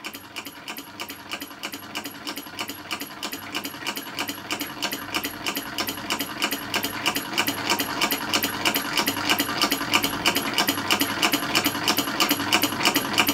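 Two small solenoid engines running together, an old one switched by a mercury switch and a scratch-built one: a fast, even clicking of plungers and linkage that grows a little louder toward the end.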